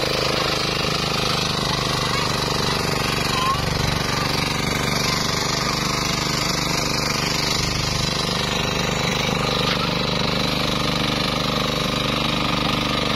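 Small single-cylinder engine of a two-wheel hand tractor running steadily under load, its cage wheel churning through flooded paddy mud.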